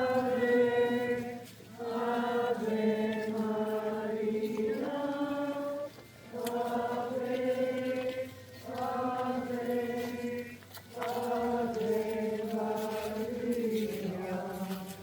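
Voices singing a slow devotional chant in unison, in held phrases of a few seconds each with short breaks between, the notes stepping down at the end of each phrase.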